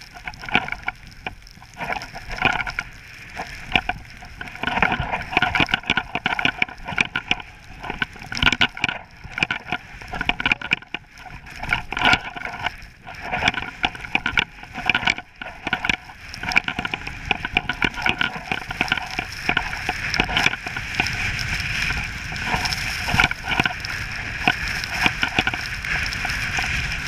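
Skis scraping and hissing over snow while skiing downhill, mixed with wind rushing over the microphone, full of irregular scrapes and knocks; the rush grows steadier and louder in the second half.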